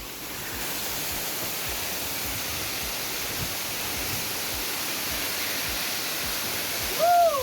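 Waterfall rushing: a steady, even hiss of falling water that grows a little louder about half a second in.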